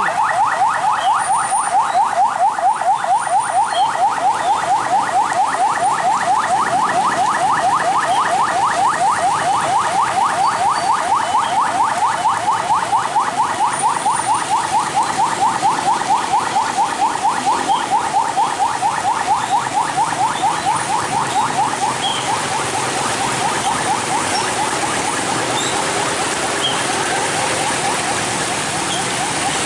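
Railway level-crossing warning bell ringing in rapid, even strokes, softening about two-thirds of the way through.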